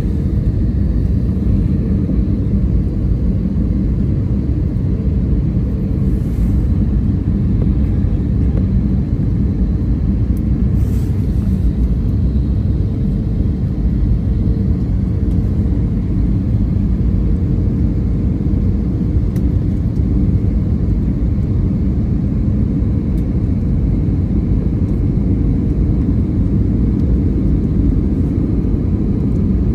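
Jet airliner cabin noise: a steady, even low rumble from the engines and airframe.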